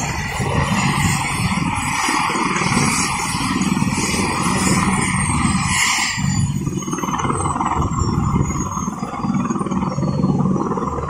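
Apache helicopter running, its rotor noise pulsing steadily under a loud, continuous rush. From about halfway through, a thin high whine slowly falls in pitch.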